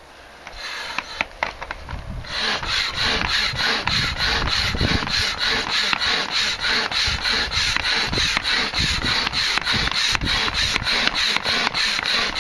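Hand air pump being worked to inflate an inflatable float tube: a quick, even rhythm of air rushes, about four a second, starting about two seconds in.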